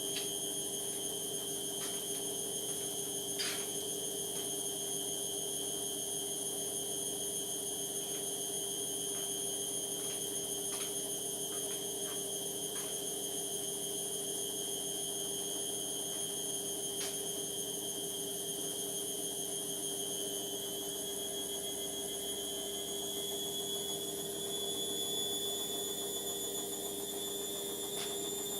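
Indesit washing machine running, with a steady high-pitched motor whine over a lower hum. The whine's pitch creeps slowly upward in the second half, and there are a few faint clicks.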